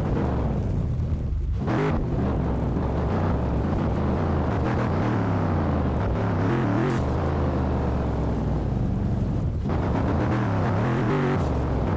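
A Mercedes-AMG G63's V8 engine running steadily under a mix of music, with no pauses.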